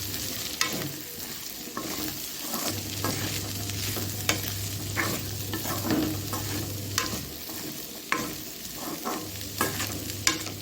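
A spatula stirring vegetables frying in oil in a kadai, with a steady sizzle and sharp scrapes and taps of the spatula against the pan about once a second.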